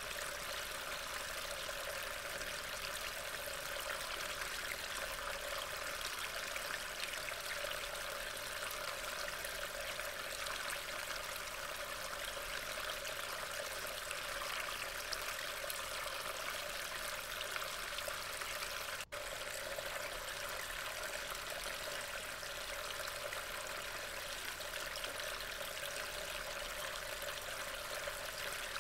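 Steady rain falling, an even rushing hiss with no let-up, which breaks off for an instant about two-thirds of the way through.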